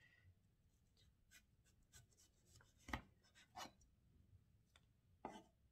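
Kitchen knife cutting Korean radish into thin strips on a wooden cutting board: a few quiet, irregular knocks of the blade meeting the board, the loudest about three seconds in.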